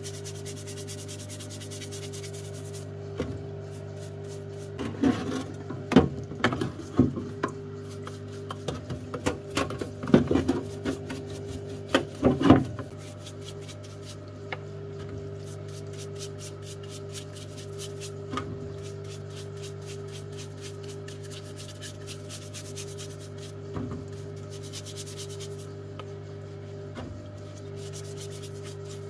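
Stiff brush scrubbing greasy residue off the plastic housing parts of a rotary hammer in thinners, in bursts of strokes that are loudest in the first half, over a steady low hum.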